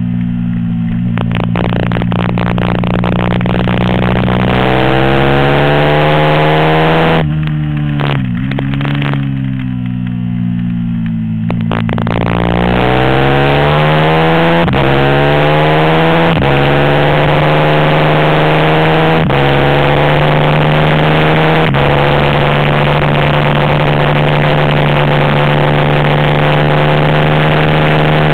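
450cc single-cylinder four-stroke race motorcycle engine at race pace, with wind rushing over the onboard microphone. The revs climb, dip sharply about eight seconds in and again about twelve seconds in, then climb back and hold steady and high later on.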